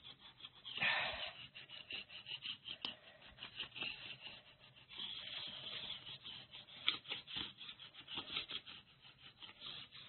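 A small sponge pad rubbed in quick short strokes across a printed paper surface, a scratchy rubbing that is louder about a second in.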